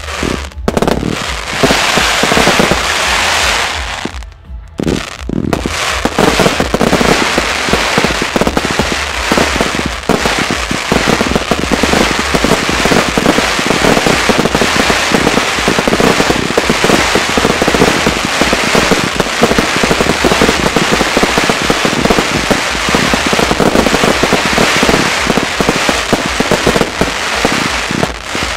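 Fireworks finale: a dense, continuous barrage of rapid pops and bangs from firework batteries and bursting shells, with a short lull about four seconds in before the barrage picks up again.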